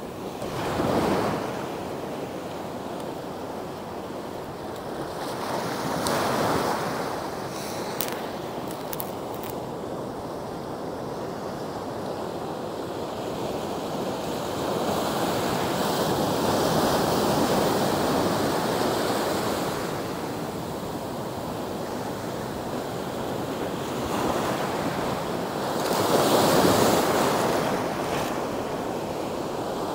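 Ocean surf washing up the beach and around the feet, a steady rush that swells and falls away with each wave. The loudest surges come about a second in, around six seconds, through the middle, and just before the end.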